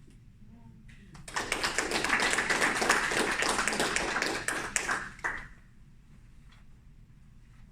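Audience applauding, starting about a second in and lasting about four seconds before stopping.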